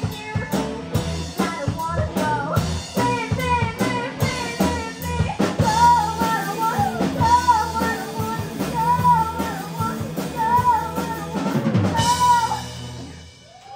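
Live rock band playing the last bars of a song: drum kit, bass and electric guitars under a wavering, bending lead line. A falling slide comes about twelve seconds in, and the band stops just before the end.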